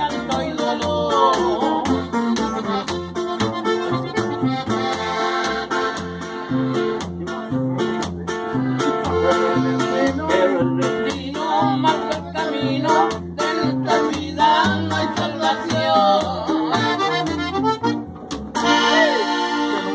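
Live norteño band playing a dance tune: button accordion carrying the melody over strummed guitar and a bass line that pulses evenly on the beat.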